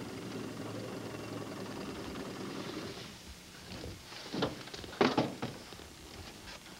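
A small boat's motor running steadily, then cutting out about three seconds in, followed by a few sharp knocks, the loudest about five seconds in.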